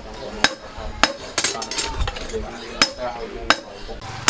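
A blacksmith's hammer striking steel on an anvil: a series of irregularly spaced blows, each with a brief metallic ring.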